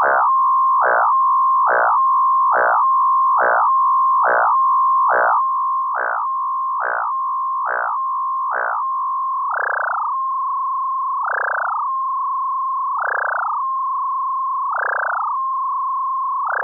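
Software synthesizer tone held near 1 kHz, frequency-modulated by an imported cricket-chirp waveform used as an LFO. A steady tone is broken by regular chirping pitch swoops, about one a second at first. From about nine seconds in they slow to about one every 1.7 seconds.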